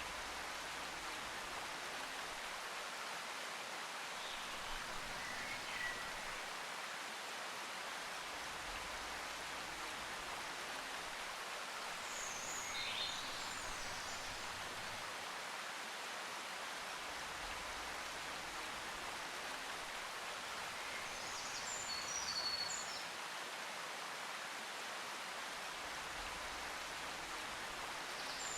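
Steady background hiss with a few faint, short, high chirps: one about six seconds in, a rising and falling one around thirteen seconds, and a quick cluster a little after twenty-two seconds.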